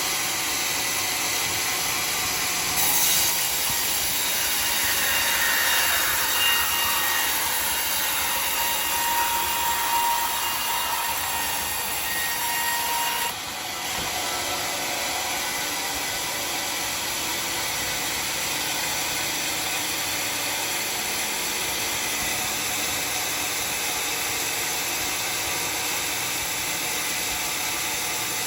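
Homemade sawmill's saw cutting through dry, very hard acacia wood. A whine sits over the steady machine noise from about three seconds in and stops abruptly about halfway through, after which the machine runs on steadily.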